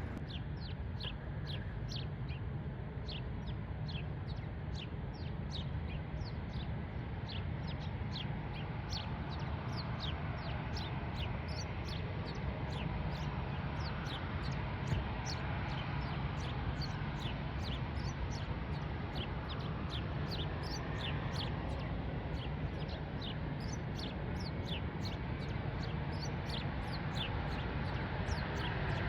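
Small birds chirping over and over, short high notes about two a second, over a steady low rumble of distant airport noise.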